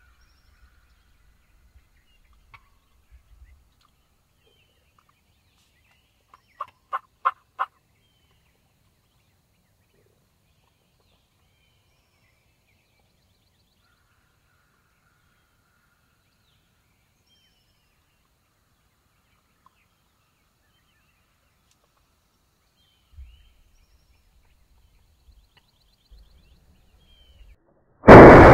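Wild turkey gobbler gobbling once, a quick rattling run of about five notes, about seven seconds in. Near the end a shotgun blast, sudden and far louder than anything else, with a long fading tail.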